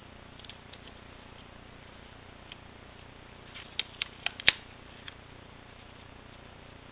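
Paper and cardstock being handled and pressed down on a work surface: a few soft ticks, then a quick run of sharp clicks and taps about four seconds in, the last one the loudest, over faint room hiss.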